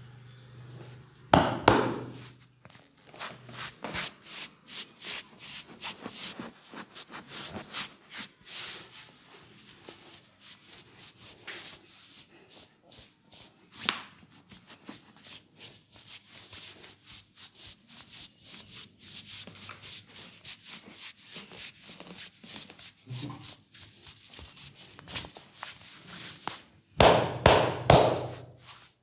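Massage hands rubbing briskly over a cotton T-shirt on a man's back and shoulders: a quick rhythmic rasp of palms on fabric, about three strokes a second. A couple of louder thumps come about a second and a half in and again near the end.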